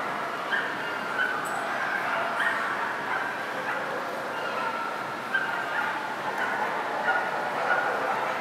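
Dogs barking and yipping, many short repeated calls over a steady background din.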